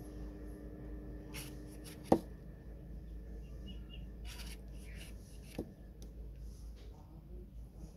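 Serrated knife blade cutting and scraping through the thick peel of a citrus fruit, in short strokes, with a sharp tap about two seconds in and a smaller one later. A steady low hum runs underneath.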